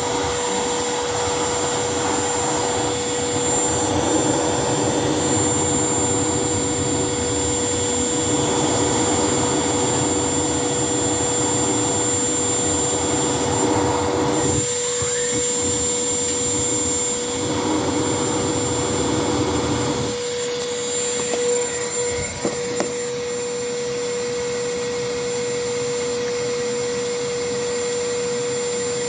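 Electric air blower running with a steady motor whine, forcing air into a charcoal forge. The rush of air through the burning coals swells and fades, then drops away about twenty seconds in, with a couple of clicks shortly after.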